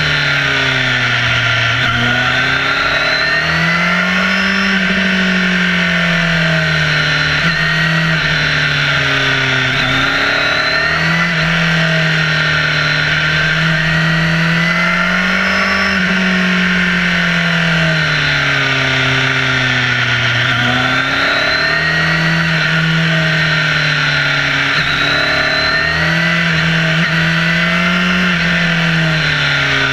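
Sport motorcycle engine running hard on a winding road, its pitch rising and falling about every five seconds as the throttle opens and closes through the bends. Steady wind rush and road noise sound over the bike-mounted microphone.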